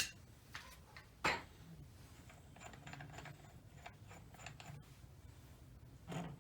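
Metal tools and engine parts being handled: a sharp clank at the start and another about a second in, then light clinking and rattling.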